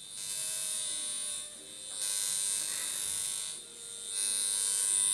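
Darsonval high-frequency comb buzzing with a high hiss as its glass comb electrode is drawn over the scalp. The buzz comes in three stretches of about a second and a half, with short breaks between.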